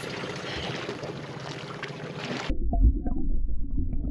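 Wind and sea hiss on the microphone aboard a small boat. About two and a half seconds in, it cuts abruptly to muffled underwater sound: a low rumble with scattered clicks and knocks, as picked up by a camera held underwater by a snorkelling spearfisher.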